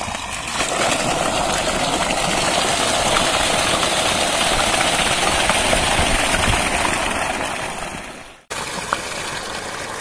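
Steady rush of water pouring from a farm pump set's outlet pipe into a concrete tank. It fades and cuts off sharply about eight and a half seconds in, then the water sound resumes a little quieter.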